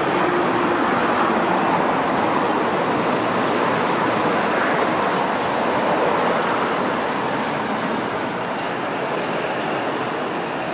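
Two-car Hong Kong Light Rail Phase 1 train pulling away from a stop, its wheels and running gear rumbling loudly as it passes close by, then gradually fading as it moves off down the track.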